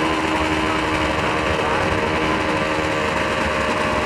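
Drag-racing snowmobile engine running at a steady, fairly constant pitch while the sled sits at the start line.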